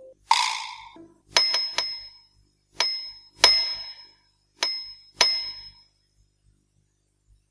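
A short swish, then a small metal bell struck about seven times in an uneven run of single and double dings, each ringing high and dying away; silence follows for the last second or so.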